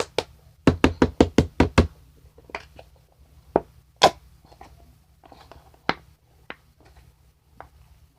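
Hard plastic knocks from a lotion bottle being rapped to get the last of the lotion out: a quick run of about seven knocks about a second in, then a few single knocks.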